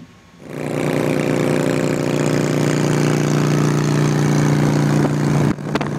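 Cruiser motorcycle's engine running at a steady, unchanging pitch while riding at constant speed. The sound starts about half a second in and briefly dips with a couple of clicks near the end.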